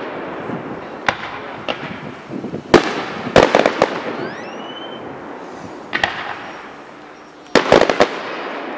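Aerial fireworks shells bursting overhead: sharp bangs, some single and some in quick crackling clusters, with a short rising whistle near the middle.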